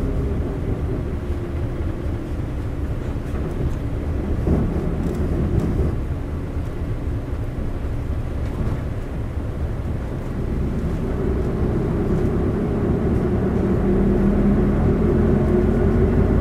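Isuzu LV city bus's 8PE1-N V8 diesel and drivetrain running, heard from inside the bus. The engine note falls in pitch at the start, then rises steadily and grows louder from about ten seconds in as the bus picks up speed.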